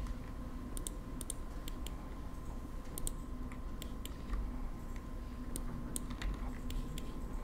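Irregular, scattered clicks of a computer keyboard and mouse as someone works at a computer, over a faint steady electrical hum.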